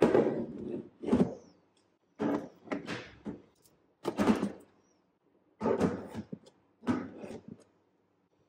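Plastic drawer organizers being set down and slid into place in a kitchen drawer: a series of about six short knocks and scrapes with brief silences between.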